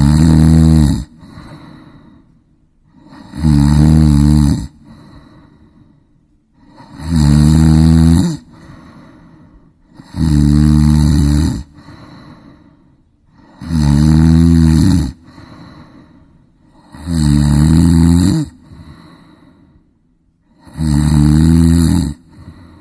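A woman snoring loudly and regularly in sleep: seven long, low snores, one about every three and a half seconds, with quieter breaths between them.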